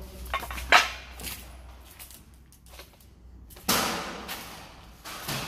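A few sharp knocks and thuds: a loud crack just under a second in, then a longer clatter that fades away near four seconds in, and a smaller knock near the end.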